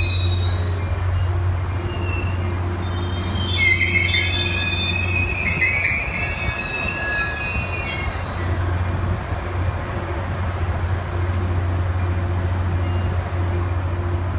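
Caltrain bilevel passenger cars rolling past a station platform, their wheels squealing at a high pitch at the start and again for several seconds in the middle, over a steady low hum.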